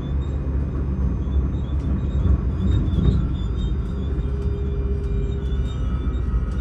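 Steady low rumble of a moving electric passenger train, heard from inside the carriage: wheels running on the rails at speed. A faint steady hum comes in about four seconds in and fades out near the end.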